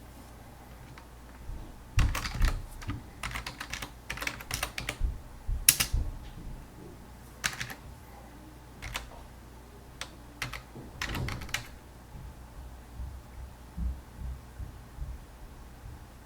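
Typing on a computer keyboard: quick runs of keystrokes, then a pause and another short run, with a few single key presses near the end.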